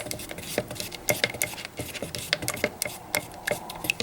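A quick, irregular run of light clicks and taps from small hard objects being handled, a few with a brief ringing tone.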